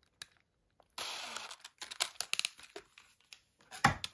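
Rustling and crinkling of hands handling tools and parts on a workbench, with scattered clicks, and a short loud knock near the end.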